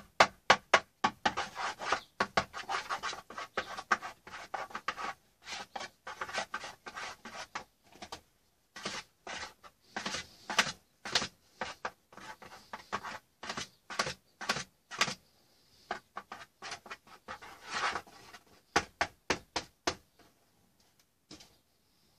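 Rapid, irregular clicking and tapping of a handheld paint applicator worked against a painting panel as lines of paint are laid down. It is densest in the first several seconds, comes in scattered clusters after that, and stops shortly before the end.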